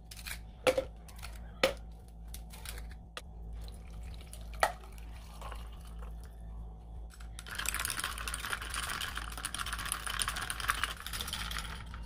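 A few sharp clicks and knocks in the first half, then running water for about the last four and a half seconds.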